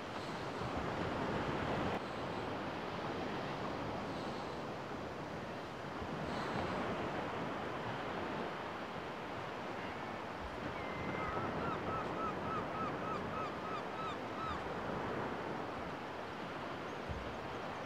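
Small waves washing onto a sandy beach, a steady surf noise with some wind on the microphone. About two-thirds of the way through, a bird calls a quick run of about a dozen short repeated notes, about three a second.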